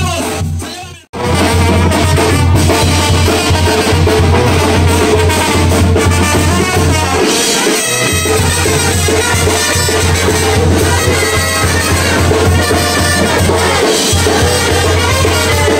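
Mexican brass banda playing live and loud: sousaphone bass, trumpets and drums over a steady beat. About a second in, the sound drops out for an instant and then comes straight back.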